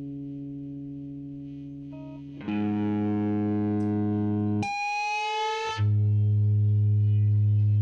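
Distorted electric guitar through a Donner Jet Convolution flanger: sustained chords, with a new chord struck about two and a half seconds in. Around the middle, for about a second, the low end drops away and a rising, squealing sweep of high tones comes in as the flanger's color control is turned up. A loud held chord follows.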